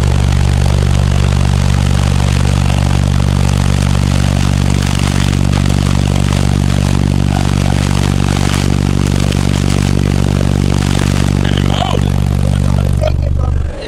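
A car audio system of ten 18-inch Sundown Audio subwoofers plays a loud, steady, sustained low bass tone, with rattling and the flapping of an umbrella held in the blast of air at the window. The bass cuts off suddenly about a second before the end.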